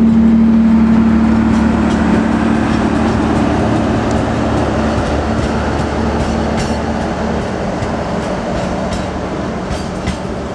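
Passenger train coaches rolling past on a curve, their wheels clicking over the rail joints, the noise slowly fading as the train moves away. A steady hum fades out in the first few seconds.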